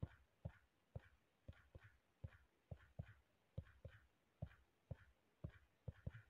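Faint, short thumps, each with a light click on top, about two to three a second at a slightly uneven pace.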